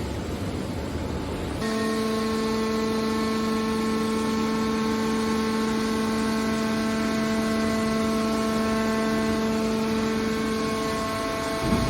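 Scrap metal baler machinery running: a noisy rumble, then about a second and a half in a steady pitched hum with overtones sets in and holds at an even level.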